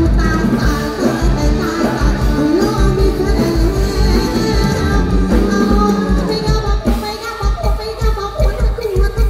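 Live band with a woman singing into a microphone, her voice carried over a steady drum beat and band accompaniment.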